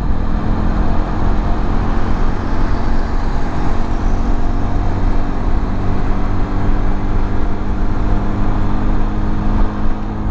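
Carbureted motorcycle engine running steadily while riding at a constant speed, with wind and road noise over it.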